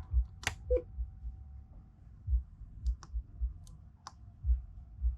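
Scattered sharp clicks of switches and buttons being pressed as newly wired marine autopilot electronics are powered up, over repeated dull low knocks and a faint steady tone.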